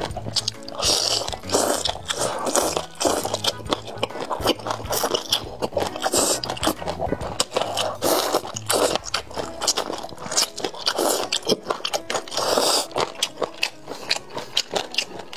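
Close-miked biting and chewing of sauce-covered fried skewers: many quick mouth clicks and smacks, with louder bites every second or two.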